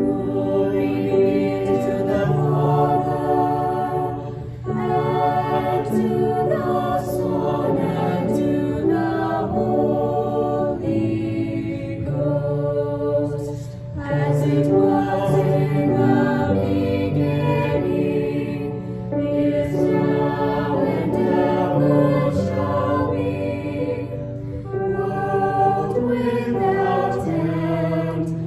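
Choir singing in harmony, holding long notes over a steady instrumental accompaniment.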